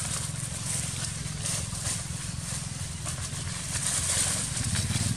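Dry fallen leaves rustling and crackling irregularly as young macaques scamper and tumble over them, over a steady low rumble.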